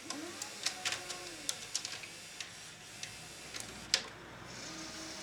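Panasonic NV-G7 VCR's tape transport mechanism working: a string of clicks while a motor whirs and slides in pitch, a sharp click about four seconds in, then a steady motor hum.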